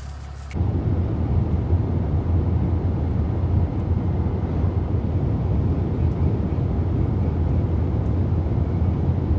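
Steady low rumble of a vehicle running, starting abruptly about half a second in.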